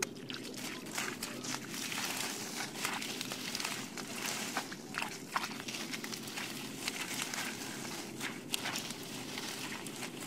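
Water hyacinth leaves and stems rustling and crackling with many small snaps as they are pulled and pushed aside by hand, along with wading in shallow muddy water. A steady low hum runs underneath.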